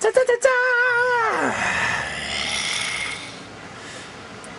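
A man wails a long, high, slightly wavering note that slides down about a second and a half in and trails off into a raspy breath.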